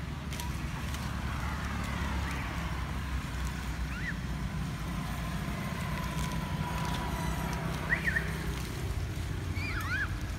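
A steady low outdoor rumble, with a few short, high chirping squeaks: one about four seconds in, a pair near eight seconds that is the loudest sound, and a few more near the end.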